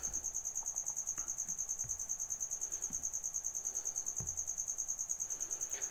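An insect trilling in the background: a steady, high-pitched, evenly pulsing trill of the kind a cricket makes. A couple of faint low knocks come through as well.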